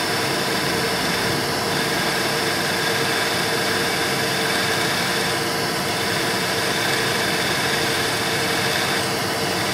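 Drilling machine spindle running steadily with an even hum, as a small drill bit bores into a broken-off zinc-plated M4 screw lodged in an aluminium router base.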